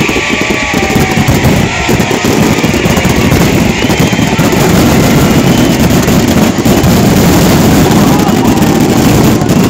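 Fireworks finale barrage: many shells bursting at once in rapid, overlapping bangs and crackle that merge into a continuous loud rumble.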